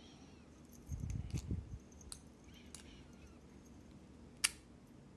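Small metal lock-cylinder parts being handled: a few sharp separate clicks, with a soft low bumping about a second in.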